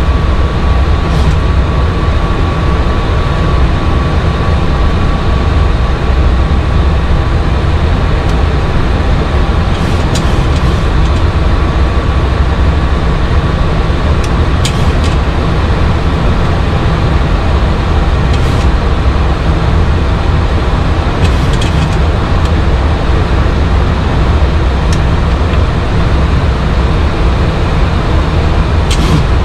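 Steady, loud flight-deck noise of a Boeing 737 MAX 8 in flight after takeoff: an even rush of airflow and engine noise, heaviest in the low end. A faint thin tone sounds underneath and fades out about halfway through, and a few faint clicks come now and then.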